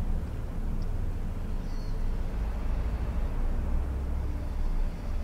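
A steady low rumble that swells a little midway, with a faint brief high squeak about a second in.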